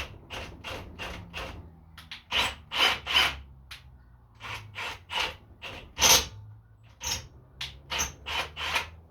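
Repeated short rasping strokes, about two or three a second and uneven in strength, with the loudest a little after six seconds in: hand-worked scraping on metal during thread repair on a small-engine crankshaft.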